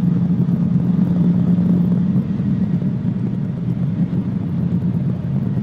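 Cabri G2 helicopter's piston engine and rotor noise as a steady low drone, heard through the headset intercom, easing slightly after about two seconds.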